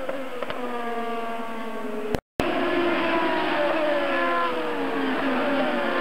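IndyCar race cars passing at speed one after another. The 2.2-litre twin-turbocharged V6 engines are at high revs, and each engine's pitch falls as the car goes by. The sound cuts out completely for a moment about two seconds in.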